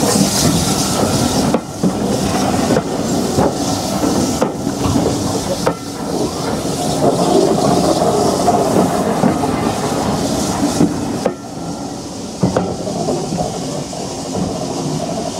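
Steam-hauled passenger train's coaches rolling past and away, wheels clicking over the rail, with the hiss and exhaust of the steam locomotive working ahead. The sound drops about eleven seconds in as the last coach clears.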